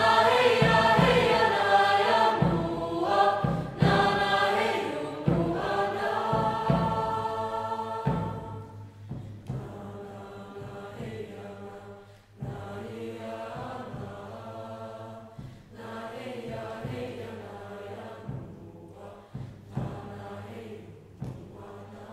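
Mixed choir singing a joik-style chant in full voice, then dropping to a much softer, sustained chant about eight seconds in.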